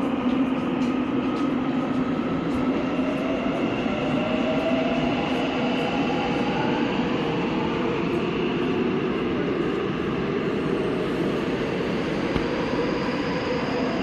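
Seoul Line 7 subway train running along the platform behind the screen doors: a steady rumble of wheels on rail, with the electric motors' whine gliding up and down in pitch.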